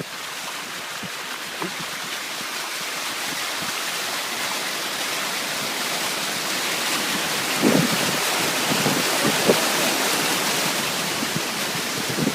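Floodwater rushing and spraying against a car as it drives through deep water, a dense hiss that starts suddenly and slowly grows louder, with a few sharper splashes in the second half.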